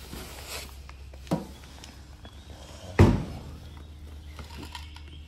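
A boxed item being taken out of a vending machine's pickup port: a light knock about a second in, then a loud thump about three seconds in as the pickup door flap swings shut, over a steady low hum.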